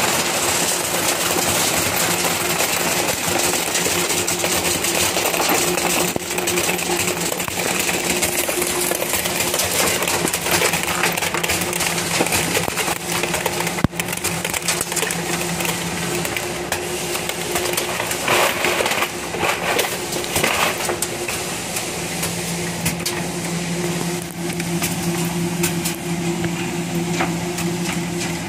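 Broken-glass sorting machine running: a steady motor hum under a constant dense clatter of small glass fragments.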